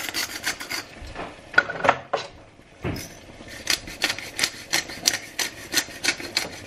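Hand-twisted salt and pepper grinder mill grinding over a pan: quick runs of rasping clicks, a pause with a knock just before three seconds in, then more grinding from about four seconds in.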